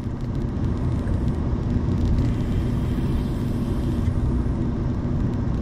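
Car cabin road and engine noise while driving: a steady low rumble with a constant hum.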